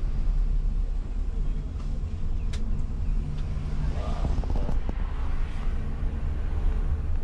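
Steady low rumble of a coach's engine and running gear, heard from inside the passenger cabin, with a single sharp tick about two and a half seconds in.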